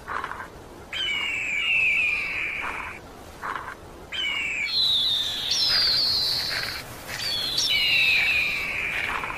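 A songbird singing: phrases of clear whistled notes, many sliding downward, repeated with short pauses between them.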